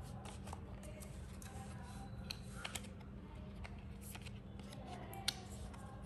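Quiet handling of a MagSafe charger's paper packaging: soft rustling and a few light clicks and taps, the sharpest a little over two seconds in, again just under three seconds in, and near the end.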